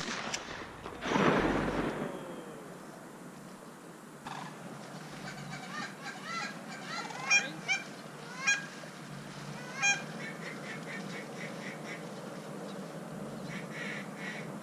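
A sharp click at the start and a loud rush of noise about a second in, then a series of goose honks, followed by quick runs of short clucking notes.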